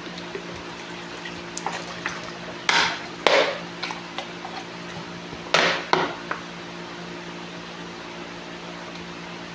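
Close-miked eating sounds of carne guisada and French fries: four short, loud, crackly bursts, two about three seconds in and two about six seconds in, over a steady low hum.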